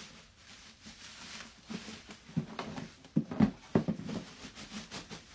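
Rice dispenser parts and packaging being handled: a run of knocks and clatters, loudest about three to four seconds in.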